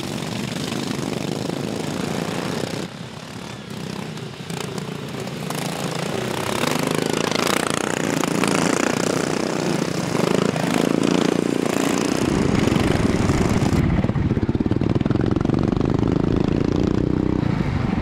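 Small engines of racing ride-on lawnmowers running hard as a pack of mowers races by. About twelve seconds in, the sound changes to one mower's engine heard close up from onboard, deeper and louder.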